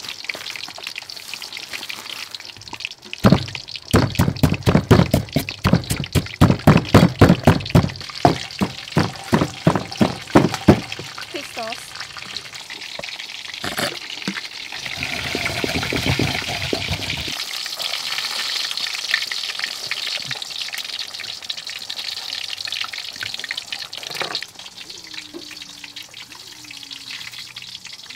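A pestle pounding chilies and garlic in a wooden mortar: a steady run of thuds, about three a second, starting a few seconds in and stopping around eleven seconds in, followed by softer scraping and mashing in the bowl.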